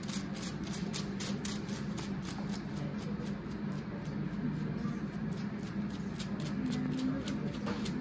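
Tint brush stroking hair colour onto strands laid over aluminium foil: quick, light scratchy strokes, a few per second and irregular, over a low steady hum.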